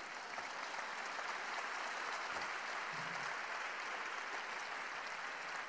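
Large open-air crowd applauding, swelling over the first couple of seconds and then holding steady.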